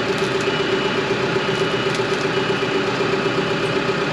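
An engine idling steadily at an even pitch, with no change in speed.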